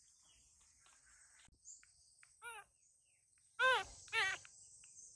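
Baby macaque calling: short wavering squeals, one faint one about two and a half seconds in, then two louder ones close together near the end, over a steady hum of insects.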